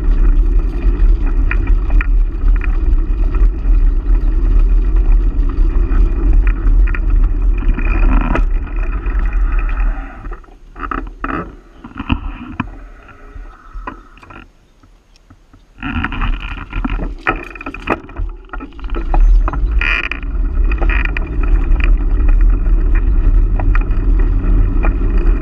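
Wind rushing over the microphone of a camera riding on a moving bicycle, with deep rumble and tyre noise on a gravel trail, broken by sharp clicks and rattles. It drops away for several seconds midway, then comes back just as loud.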